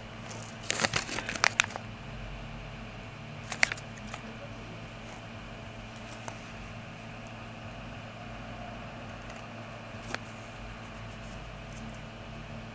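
Small plastic Kinder Surprise toy pieces clicking and rattling as they are handled and fitted together: a cluster of clicks about a second in, a sharp click near four seconds and one more near ten seconds, over a steady low hum.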